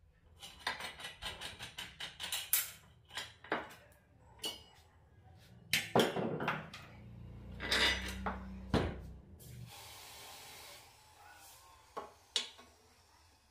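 Steel parts of a homemade wood lathe being handled and fitted by hand: a quick run of small metal clicks and rattles, then several separate, heavier metal knocks and clanks. A short stretch of steady hiss follows the loudest knocks, and two more clicks come near the end.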